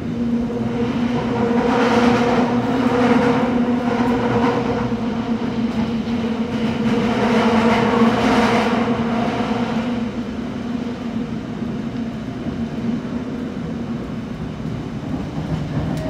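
Seoul Line 7 subway train running at speed, heard from inside the car: a steady motor hum under a rushing wheel-and-rail roar. The roar swells twice, around two and eight seconds in, then settles lower.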